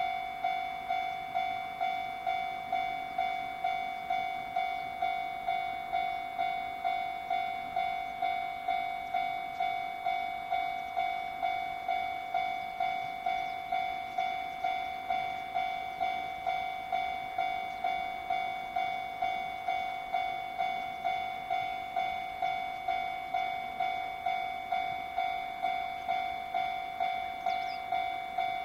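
Japanese level-crossing warning bell ringing: an electronic 'kan-kan' ding repeating about one and a half times a second, each strike fading before the next, signalling that a train is approaching.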